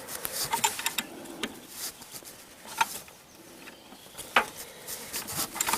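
Wrench working the alternator's belt-tension adjusting bolt: a scattering of short, irregular metal clicks and taps.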